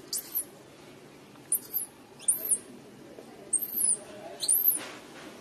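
Infant macaque squealing: a run of high, thin cries, each rising and then falling in pitch, coming about once a second.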